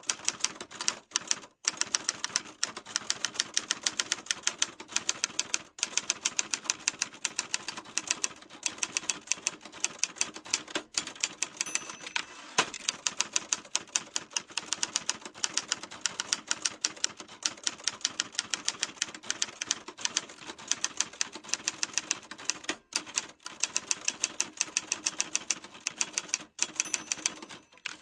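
Typewriter keys being struck in fast, continuous typing: a steady stream of sharp clacks, several a second, with a few brief pauses.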